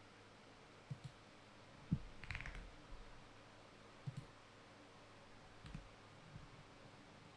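Faint, scattered clicks and light taps against quiet room tone, a few seconds apart, with a short cluster of quick clicks about two seconds in.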